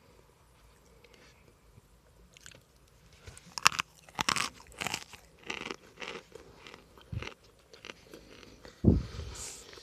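Close-up chewing of hard, dry baked cornstarch chunks: a run of loud, sharp crunches for a few seconds, after a quiet start, with a heavy low bump near the end.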